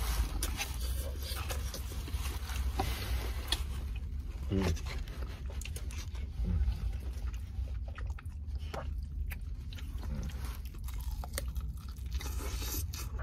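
Close-up biting and chewing of crisp, hard-fried chicken wings: wet mouth sounds with many small, irregular crunches and crackles of the breading.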